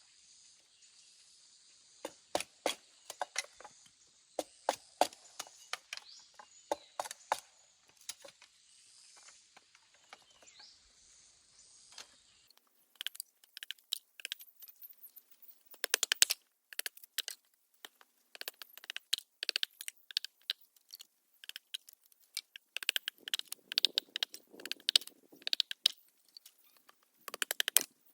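Irregular sharp knocks and cracks of wood being chopped or split with a hand tool. A steady high hiss sits behind the knocks and stops abruptly about halfway through, where the knocks turn denser and crackly.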